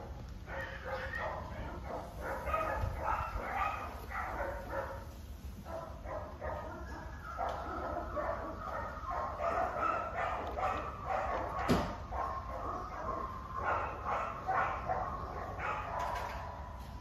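Animal calls in short, repeated bursts through the whole stretch, over a steady low rumble, with one sharp click about twelve seconds in.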